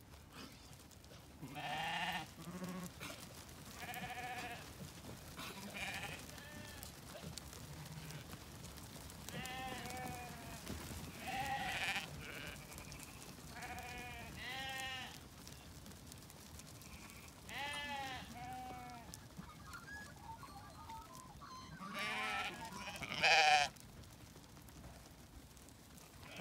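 A mob of second-cross sheep bleating, about a dozen separate calls with a quavering pitch, a few seconds apart; the loudest comes near the end.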